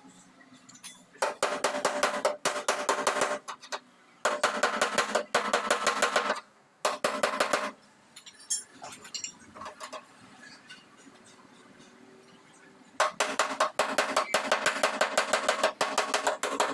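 A hammer beating sheet-steel body panels in rapid runs of about six ringing blows a second. It stops for a few seconds in the middle and then starts again near the end. This is panel beating to straighten a dented truck cab.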